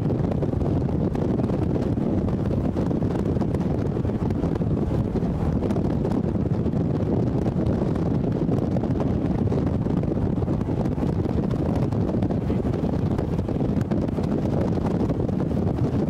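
Strong thunderstorm wind buffeting the microphone in the core of a downburst: a steady, dense low noise with rapid fluttering and no let-up.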